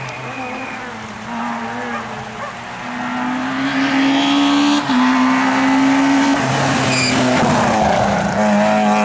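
Rally car engine at full throttle as the car approaches, pitch climbing, then a quick upshift about five seconds in. It lifts and drops in pitch as the car brakes for the bend, with a brief tyre squeal, then pulls hard again near the end as it passes close by.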